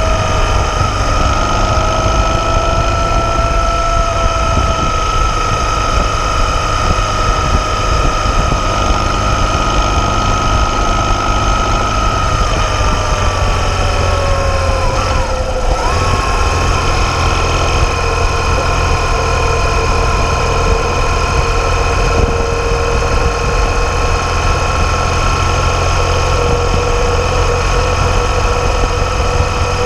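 BMW R 1200 GS boxer-twin engine running as the motorcycle rides along, heard from a camera at the handlebars: a steady low rumble with an even whine. About halfway through the whine sags in pitch, breaks off briefly, and then carries on a little lower.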